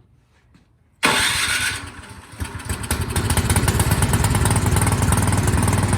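Craftsman snowblower engine starting about a second in and then running steadily. It catches and keeps running now that its carburetor has been cleaned of the gunk that clogged the main jet.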